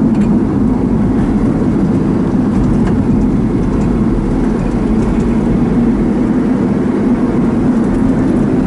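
Steady low rumble of engine and road noise inside a small vehicle's cabin while driving.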